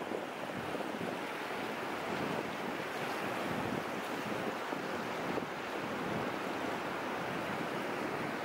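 Steady rush of water, an even noise with small surges and no separate events.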